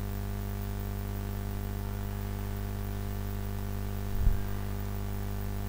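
Steady electrical mains hum in the recording, with a brief low thump about four seconds in.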